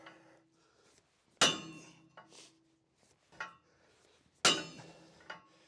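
Sledgehammer striking a steel pin driver to drive a seized, torch-heated track pin out of an excavator track: two heavy metal-on-metal blows about three seconds apart, each ringing out, with fainter clinks between.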